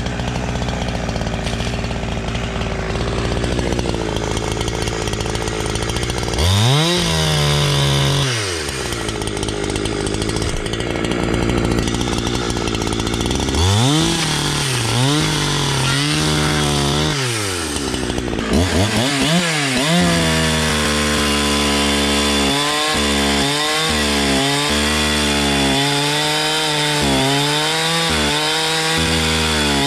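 Holzfforma G372XP 71cc two-stroke chainsaw on a 28-inch full-chisel bar and chain, run wide open while cutting through a hardwood log. Its engine pitch climbs sharply a few times in the first half and, in the second half, keeps dipping and recovering as the chain bites into the wood.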